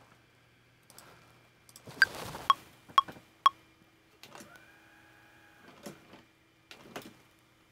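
Software metronome count-in: four clicks half a second apart, the first higher in pitch, marking one bar before recording starts. A faint steady whine follows for about a second and a half.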